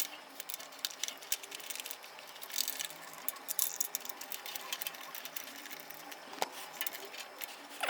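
Allen key tightening the blade screws on a portable electric planer: a run of small, irregular metal clicks and rattles.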